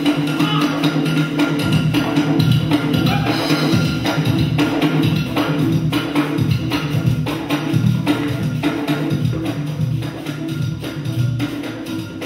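Live Afro-Brazilian afoxé-style music from a band led by hand drums, with sharp, evenly spaced percussion strikes keeping a steady rhythm over sustained low notes.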